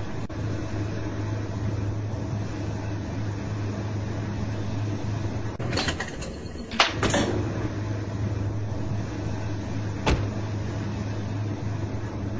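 Two washing machines, an Amana and an Elite Series 4, running together: a steady motor hum under a constant wash noise. A cluster of sharp clunks comes about six to seven seconds in, and one more sharp knock near ten seconds.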